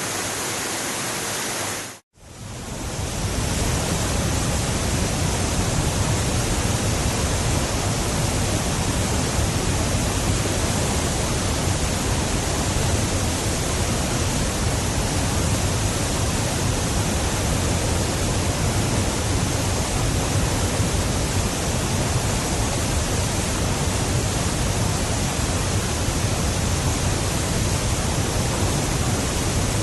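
Waterfall: a steady rush of falling water. It cuts out for an instant about two seconds in, then fades back in a little louder and deeper.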